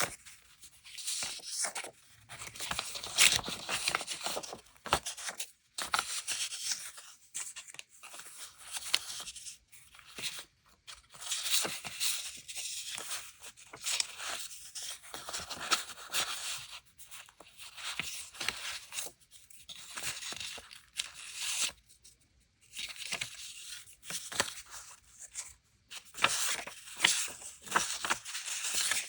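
Paper being handled: repeated bursts of paper tearing and rustling, with short pauses between.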